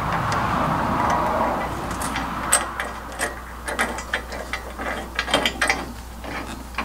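Hand ratchet wrench clicking in quick, irregular strokes as a nut is run down onto a hitch mounting bolt on the truck frame, after a couple of seconds of steady hiss.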